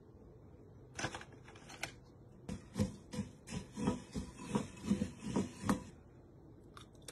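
Hot puffed rice crackling and rattling as it is tossed with fingers and a small spoon in a bowl: a few sharp clicks about a second in, then a quick run of crunchy clicks about three a second.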